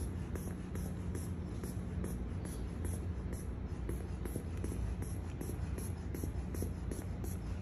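Rubber hand bulb of an inflatable neck traction collar being squeezed to pump it up, giving soft, irregular puffs and rubs of air. A faint high chirp repeats evenly about twice a second, over a steady low hum.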